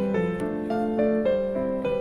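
Background piano music: a gentle melody of held notes changing about every half second.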